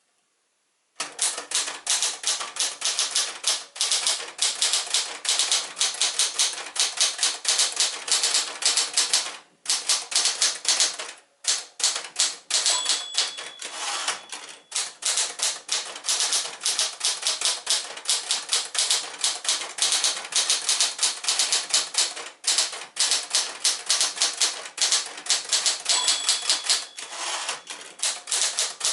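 1967 Penncrest Caravelle 10, a Smith-Corona Galaxie-series portable typewriter, being typed on: fast, dense key strikes starting about a second in, with two short pauses and a brief ringing tone twice.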